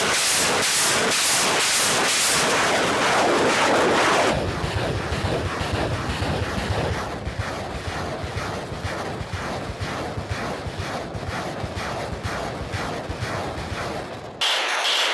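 Tornado-G multiple rocket launcher firing a salvo: rockets launch one after another, about two a second, merging into a continuous rushing noise. The noise cuts off abruptly near the end.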